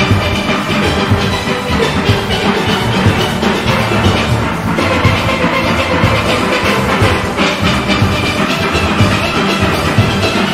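Steel orchestra playing at full strength: many steelpans ringing out melody and chords over bass pans and a steady drum and percussion beat.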